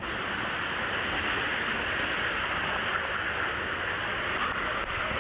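Steady rush of running water in a swimming pool, an even noise like a stream that carries on without a break.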